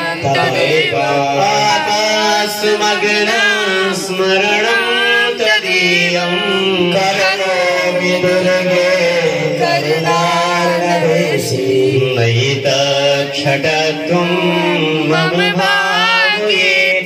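A devotional Sanskrit hymn chanted melodically by voice, without a break, over a steady low drone.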